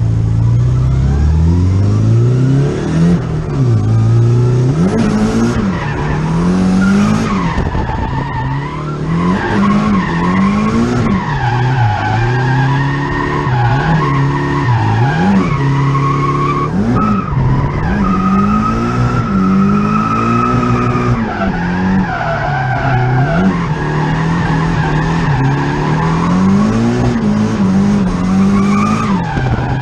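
Straight-piped, turbocharged SR20DET four-cylinder of a Nissan 240SX drifting: the revs rise and fall every second or two while the rear tyres squeal in long, wavering tones. The owner says the turbo is pretty well worn out, leaving the car down on power.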